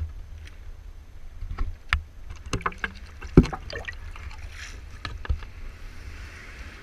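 Shallow sea water splashing and sloshing around a handheld camera near the surface, with irregular small knocks and one sharper knock about halfway through. Wind rumbles on the microphone throughout, and a brief rush of water comes near the end.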